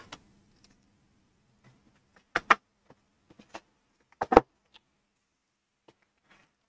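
Computer mouse double-clicking: two quick pairs of sharp clicks about two seconds apart, with a few faint small ticks between.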